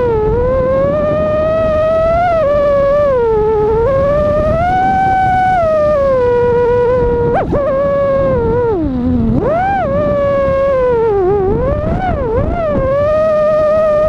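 FPV quadcopter's brushless motors whining, one tone whose pitch glides up and down with the throttle and dips low a few times, over a steady low rumble.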